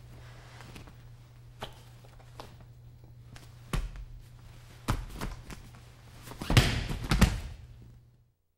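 Scattered thuds and scuffling of people moving and falling on a training mat over a steady low hum. A louder flurry of thumps and rustling comes about six and a half seconds in, and the sound cuts out just before the end.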